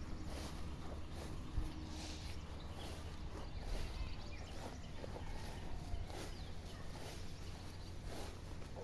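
Goats feeding: irregular rustling and crunching of fodder, with a steady low rumble underneath.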